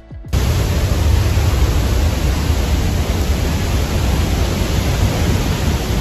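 Roar of the Pailón del Diablo waterfall at close range: a loud, steady rush with a heavy low rumble, cutting in abruptly just after the start.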